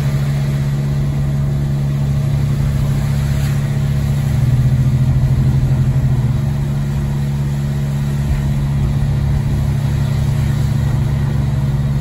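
A car driving along a wet road, heard from inside the cabin with the side window rolled down: a steady low engine and tyre hum under an even hiss of wind and road spray, swelling slightly about halfway through.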